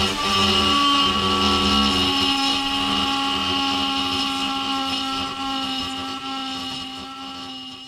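Electric die grinder running steadily with a carbide burr, cutting into the aluminium exhaust port of a rotary engine housing: a steady high whine that holds its pitch and fades down over the last few seconds.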